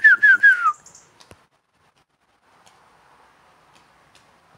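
The end of a quick run of short, clear whistled notes, each sliding downward, about four or five a second, stopping under a second in. After that only a faint even hiss of background.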